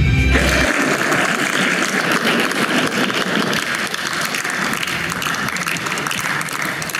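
An audience clapping, a steady applause that slowly dies down. A music track cuts off right at the start.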